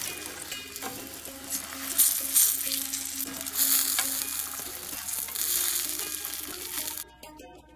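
Hot deep-fried chicken feet sizzling and crackling as they are dropped into a bowl of water, with small splashes; the crackle cuts off suddenly near the end.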